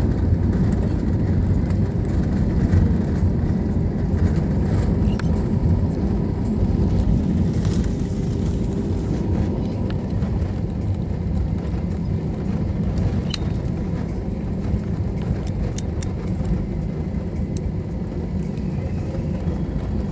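Inside an airliner cabin: the steady low rumble of the engines and wheels as the plane rolls on the ground after landing, with a faint steady hum, easing slightly toward the end.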